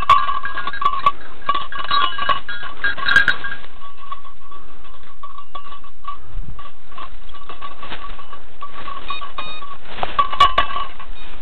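A hunting dog's collar bell jingling unevenly as the dog works through dense dry brush, over scratching and rustling of twigs and leaves against the dog and the camera.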